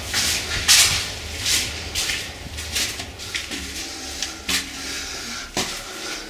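Irregular short scuffs and scrapes, one or two a second, over a low steady rumble that drops away near the end, in a small concrete room.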